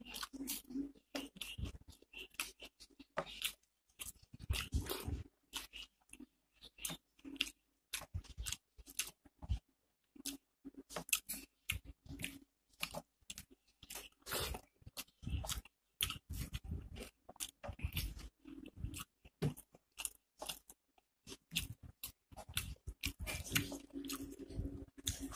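Close-up mouth sounds of a person eating rice and dal with fried onion pakora: chewing, crunching and wet smacking clicks, irregular and continuous, with brief silences between.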